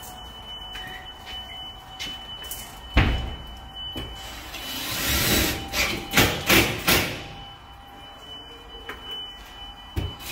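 Workers handling and fitting a sheet of drywall against a wall. There is a sharp knock about three seconds in, then a swelling scraping rush and a run of knocks, and another knock near the end.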